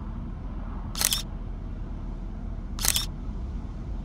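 A camera shutter clicks twice, about two seconds apart, over a steady low rumble.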